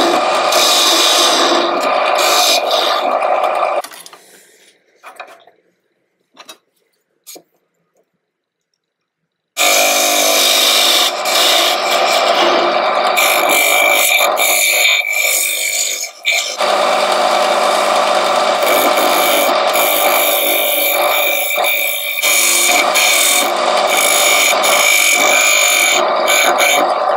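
Wood lathe spinning a lacewood bowl while a turning tool cuts across its face, a steady rasping hiss of steel shearing wood. It breaks off to near silence about four seconds in and resumes about ten seconds in.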